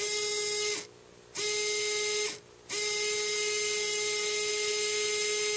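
Small electric motor and gear train of a Canon ZR40 camcorder's MiniDV tape mechanism whining in three runs: a short one, a slightly longer one, then a longer run of about three seconds, each starting and stopping abruptly. The mechanism has a stripped gear.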